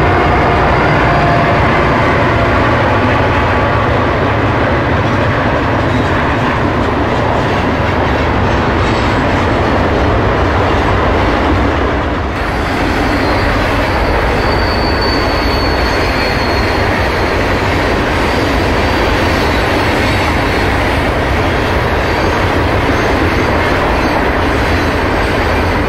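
Florida East Coast freight train rolling past at speed: a steady loud rumble and clatter of wheels on the rails. After a break about halfway, hopper cars run by with a brief high-pitched wheel squeal a few seconds later.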